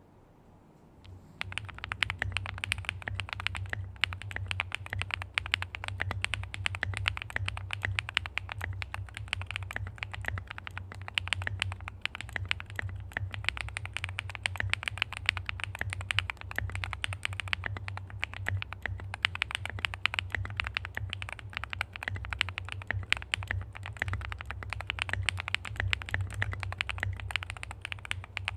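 Continuous fast typing on a QK75 mechanical keyboard with Gateron Deepping switches (4.0 mm travel) and high-profile cylindrical GSA Ping Master ABS keycaps, a dense stream of key strikes. It starts about a second and a half in.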